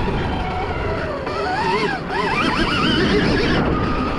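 Stark Varg electric dirt bike's motor whine rising and falling in pitch with the throttle, climbing steeply about halfway through, over a rough rush of wind and tyre noise.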